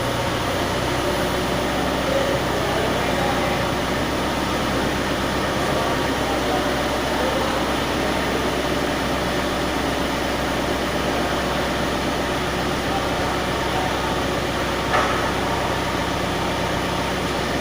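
An engine running steadily with a constant hum, and one short sharp knock about fifteen seconds in.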